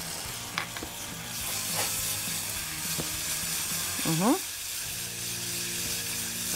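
Chili powder, ghee and tomato paste sizzling as they fry in a small pan, stirred with a silicone spatula that gives a few light taps against the pan. A short rising sound about four seconds in.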